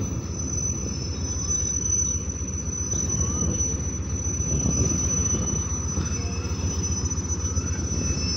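ZCU-30 diesel-electric locomotive's engine running with a steady low throb as it hauls a loaded coal freight train slowly into the station.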